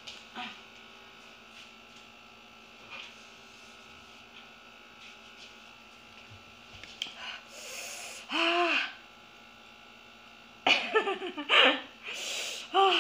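A woman sneezes about eight seconds in, then sniffles and blows her nose into a tissue in several loud bursts near the end, her nose running from chilli heat. A faint steady hum runs underneath.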